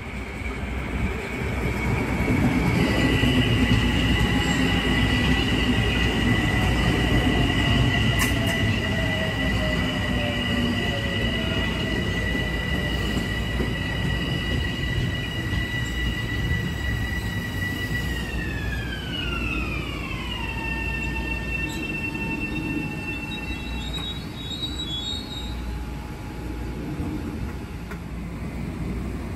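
A train running past, with a high-pitched squeal in two steady tones that slides down in pitch about two-thirds of the way through, then holds lower until it fades.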